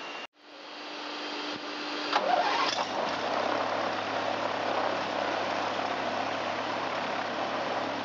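Six-cylinder air-cooled Jabiru 3300 aircraft engine being started: it cranks briefly, catches about two seconds in with a loud burst, then settles into a steady idle.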